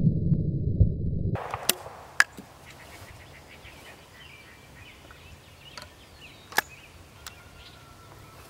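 A deep, muffled rumble with no highs, the slowed-down sound of a shot from slow-motion footage, fades and cuts off abruptly about a second and a half in. Then comes a quiet field with birds chirping and a few sharp clicks.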